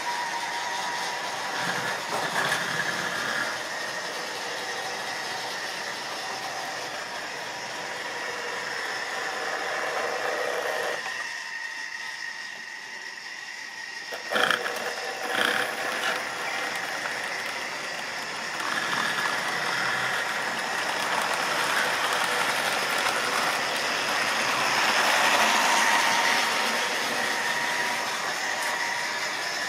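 Model railway trains running on the layout: a steady electric motor whine with the wheels rattling over the track. A few sharp knocks and clicks about halfway through come as a locomotive is handled on the track.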